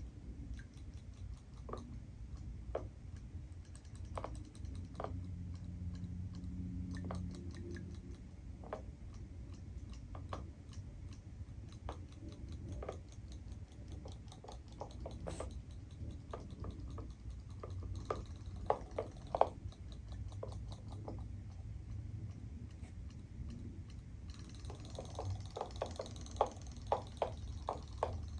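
Robotic toy fish swimming in a plastic tub of water: irregular light clicking and ticking over a low steady hum, the clicks coming thicker and sharper near the end.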